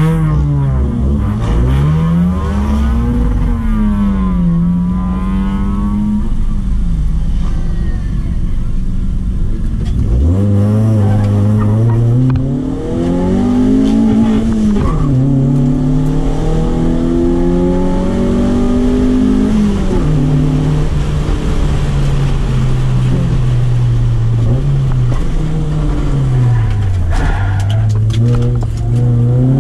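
Toyota Corolla AE111's 1.6-litre 4A-FE four-cylinder engine, heard from inside the cabin, revving hard. Its pitch climbs under acceleration and drops sharply several times at gear changes and lifts for corners.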